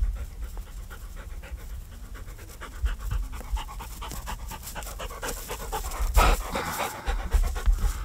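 Dog panting close to the microphone in rapid, steady breaths, with one louder breath about six seconds in.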